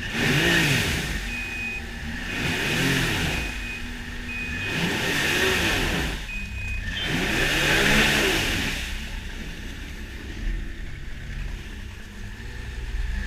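Snowmobile engine revved hard about four times, each rev rising and then falling in pitch, as a sled stuck in snow tries to power free.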